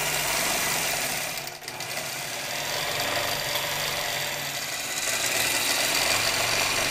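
Long-arm quilting machine running steadily, its needle stitching rapidly up and down through the quilt layers, with a brief dip about one and a half seconds in.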